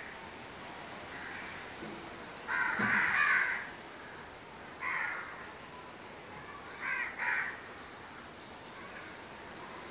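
Crow cawing: a long harsh call about two and a half seconds in, a shorter one about two seconds later, then two quick calls in a row near the end, over a faint steady hiss.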